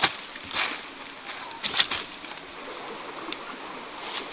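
Dry leaves and brush rustling and scuffing underfoot as people clamber barefoot over rocks. There are a few short scrapes, the strongest about half a second and nearly two seconds in.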